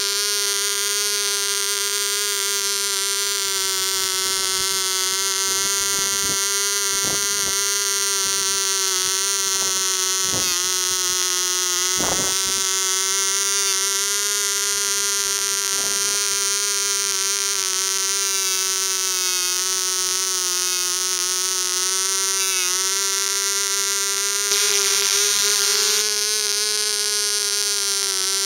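AE 0.1cc two-stroke model diesel engine running steadily with its propeller spinning: a high-pitched buzz that wavers slightly in pitch now and then. A few faint clicks come in the first half, and the buzz gets a little louder and brighter for a moment about 25 seconds in.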